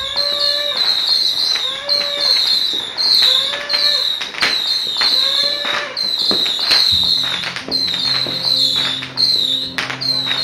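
Fireworks and firecrackers going off in many irregular sharp bangs. A short pitched call repeats four times in the first half, and steady music tones join about seven seconds in.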